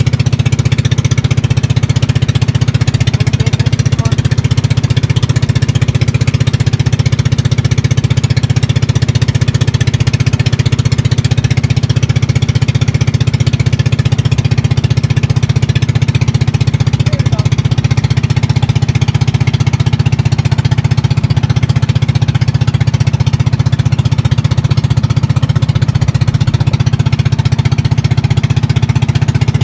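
Boat engine running steadily, a loud, fast, even chugging that holds constant throughout.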